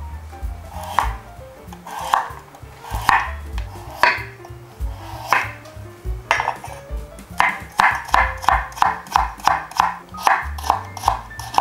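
Kitchen knife cutting a raw carrot on a wooden cutting board, each stroke ending in a sharp knock on the board. The knocks come about a second apart at first, then in a quick even run of about three a second in the second half as the carrot is cut into thin strips.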